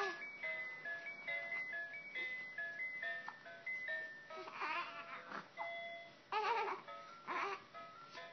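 A simple chiming melody of single high notes plays, like a baby toy's tune. From about halfway a four-week-old baby gives three short whimpering cries.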